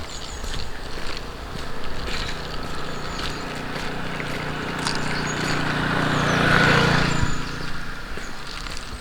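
A vehicle passing close by, its engine hum building to a peak about seven seconds in and then falling away, over light footsteps.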